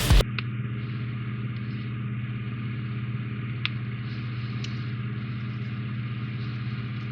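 Loud rock music cuts off right at the start, leaving a steady low hum, with a couple of faint clicks about three and a half and four and a half seconds in.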